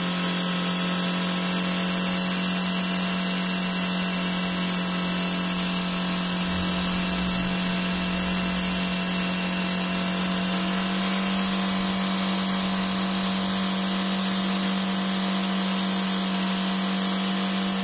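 Chevrolet Spark's S-TEC petrol engine running steadily at idle with a constant hum, while dirty, rust-laden coolant water streams and splashes out of the open hose outlet at the thermostat housing as the cooling system is flushed.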